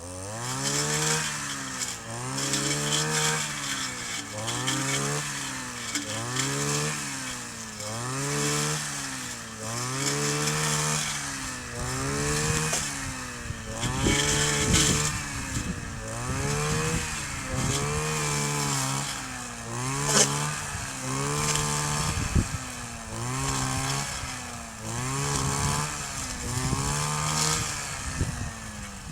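Kioritz 260 brush cutter's small two-stroke engine revved up and let back down over and over, about once every two seconds, its pitch climbing and falling with each blip of the throttle.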